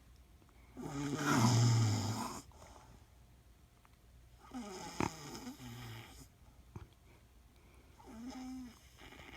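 A woman snoring in her sleep: three snores a few seconds apart, the first the loudest and longest.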